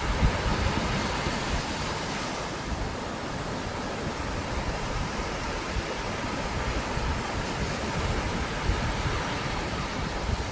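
Steady rushing outdoor noise with wind buffeting the microphone in irregular low gusts, and a steady high hiss above it.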